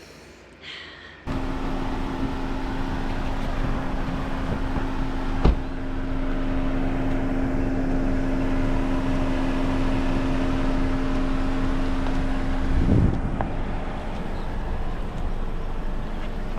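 A car running steadily, with a constant low hum under an even rumble. It comes in suddenly about a second in, with a sharp click about five seconds in and a short swell near the end.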